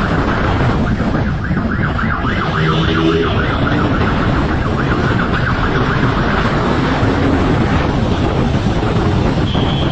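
Motorcycle engine running hard under steady heavy wind rush on the microphone while riding fast.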